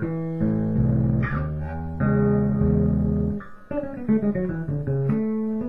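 Electric bass, a Warmoth Jazz Bass, played straight into a Music Man HD-130 amp and Avatar 2x12 cab: held notes, then a quick run of short notes about three and a half seconds in, then held notes again. There is a little distortion, which is just how the amp sounds.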